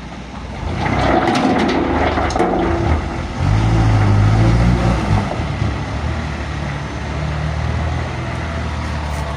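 Isuzu dump truck's diesel engine revving hard, loudest from about three and a half to five seconds in, then running on more steadily. There is some crackling noise about a second in.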